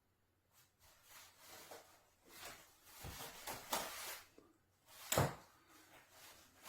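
Soft rustling and scraping handling noises, with a sharper knock about five seconds in.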